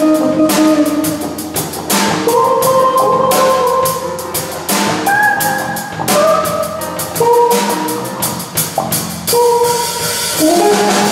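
Live jazz combo playing: saxophones play a line of held notes over electric guitar, bass and a drum kit with busy cymbals.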